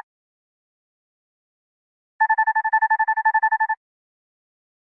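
Electronic alarm ringtone: a rapid pulsing beep on one steady pitch, about nine pulses a second, heard as a single burst of about a second and a half starting about two seconds in.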